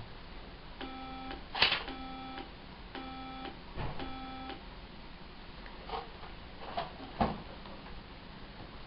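Four buzzy test beeps, each about half a second long and a second apart, played for a hearing-count task, with a sharp click between the first two. A few soft taps or knocks follow near the end.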